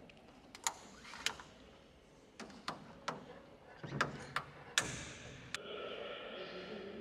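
A series of light clicks and knocks, about nine in five seconds, as a red fabric-covered surface is handled and fitted against the aluminium skin panel of a DINGO ultralight, then a softer steady sound for the last second or so.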